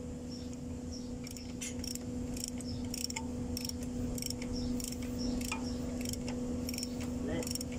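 Socket ratchet clicking in short irregular strokes, about three clicks a second, while loosening the bolts on a truck transmission's gearshift housing, over a steady low hum.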